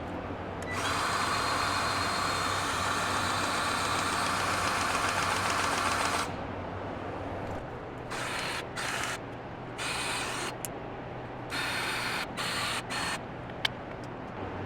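Battery-powered grease gun's motor running for about five seconds, then pulsed in a string of short bursts. The gun is pumping with air still in the line, so grease is not coming out properly.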